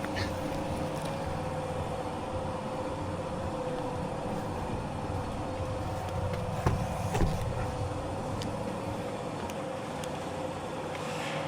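Steady machine hum with a constant high whine over a low rumble, with two knocks close together a little past halfway.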